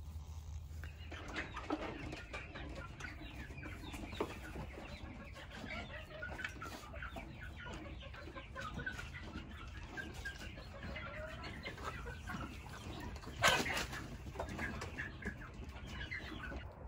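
Chickens clucking, many short calls overlapping, with one brief louder sharp sound about thirteen seconds in.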